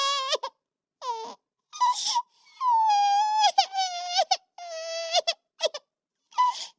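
Very high-pitched cartoon-style crying voice: broken sobs and wails in short bursts with brief silences between them, and a longer wail that falls in pitch starting about two and a half seconds in.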